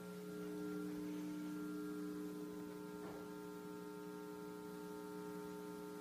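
Small guitar amplifier humming steadily with mains hum, its input cable plugged into a corn dog instead of a guitar.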